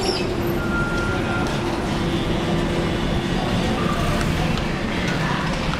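Siemens light-rail car of a MAX train standing at the platform after braking to a stop, giving off a steady hum over street noise. A short high beep sounds about a second in.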